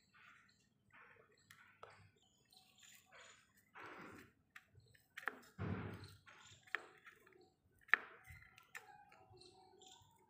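Fingers kneading soft flour dough in a small steel bowl: faint, irregular squishes and rustles, with a few sharp clicks in the middle.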